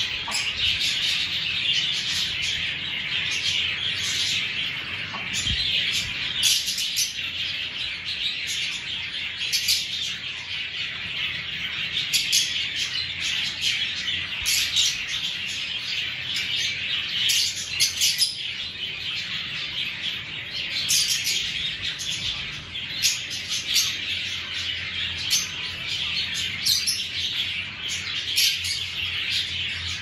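A flock of Fischer's lovebirds chattering continuously: a dense high twittering broken by frequent short, shrill chirps.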